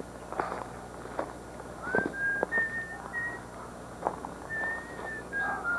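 Someone whistling a short run of high, held notes that step up and down, starting about two seconds in, with scattered knocks like footsteps.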